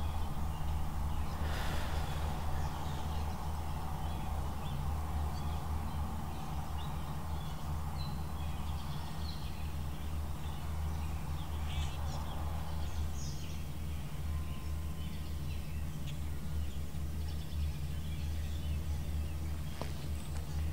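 Outdoor ambient noise: a steady low rumble with a hiss that thins out about halfway through, and a few faint high chirps.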